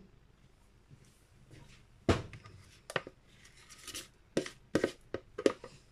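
A utensil knocking and scraping against a plastic bowl while scooping cream out of it onto a cake: a few sharp taps, the loudest about two seconds in, then a quick cluster of taps near the end.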